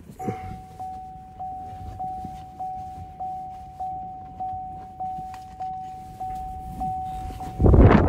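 Car's door-open warning chime: a single-pitched ding repeating steadily, about one and a half times a second. Near the end, loud wind noise on the microphone rushes in as the door swings open.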